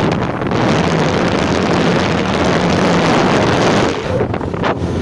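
Wind rushing over a phone's microphone on a moving Suzuki motorcycle, with the bike's engine running underneath. The wind eases slightly near the end.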